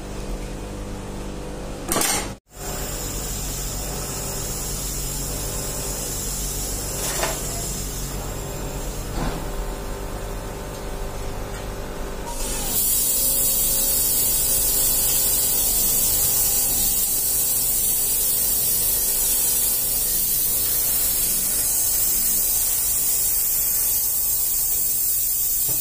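A truck air-brake air dryer on a test bench, being tested after its plunger was fitted, hisses as compressed air vents from its silencer, over the steady hum of the bench's motor. There is a short burst about two seconds in. About twelve seconds in, a louder, harsher hiss of air starts and keeps on.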